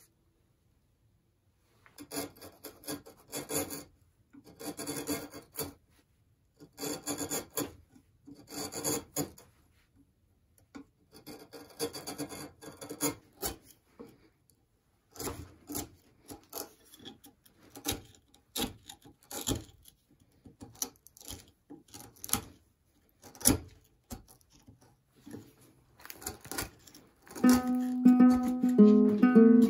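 Hand chisel paring and scraping wood fibres out of a hollow cut in a wooden block: at first a run of scraping strokes about one a second, then quicker, uneven scrapes with sharp clicks. Near the end, plucked-string music comes in and is louder than the carving.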